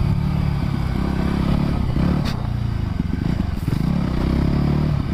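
Voge 300 Rally's 300 cc engine running under load at low revs, the engine note rising and falling a little as the throttle is worked on the gravel. A single sharp knock about two seconds in.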